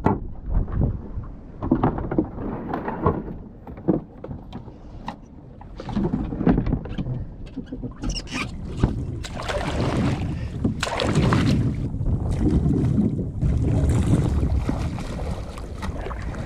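Sea water slapping and splashing against a plastic fishing kayak, with wind buffeting the microphone and scattered knocks of hands and gear on the hull; the rushing noise grows louder and steadier about halfway through.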